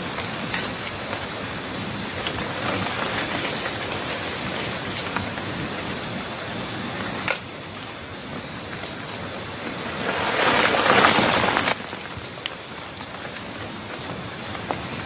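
Steady rain-like patter. A sharp click comes about seven seconds in, and a louder rushing hiss swells about ten seconds in and cuts off suddenly.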